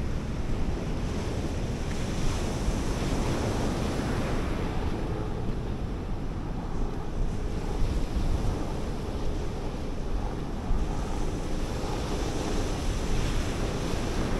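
Surf breaking on a sandy beach, a steady wash of waves that swells and eases, with wind buffeting the microphone.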